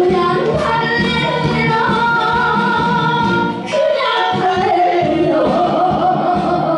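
A woman singing a Korean song into a handheld microphone over musical accompaniment, holding long notes with a wavering pitch. Her line breaks briefly a little past halfway, then carries on.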